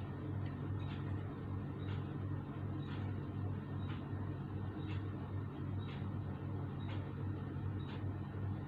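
A steady low hum with a faint regular tick about once a second, like a clock ticking.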